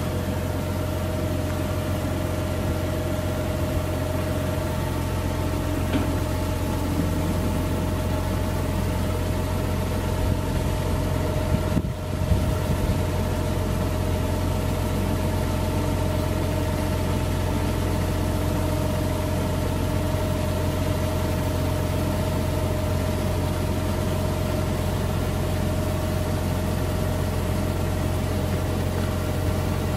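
Tractor engine running steadily at a constant speed, a low hum with a steady whine over it, while it powers the slow hydraulic raising of a mobile grain dryer's drying column.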